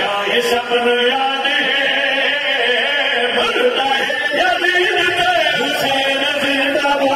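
Group of men chanting a devotional qasida together into microphones, a lead voice with others joining, held on long sung notes.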